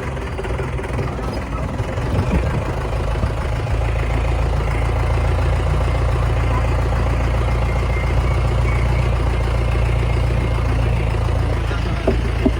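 A vehicle engine running steadily on an off-road forest track, a low rumble that grows a little louder about four seconds in.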